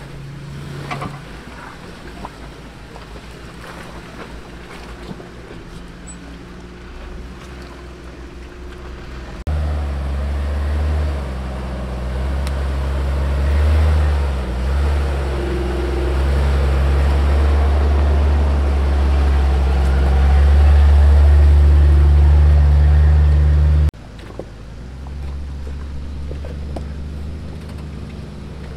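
Off-road vehicle engine running on a rough trail, a deep steady drone. It jumps suddenly louder and deeper partway in and cuts back suddenly later.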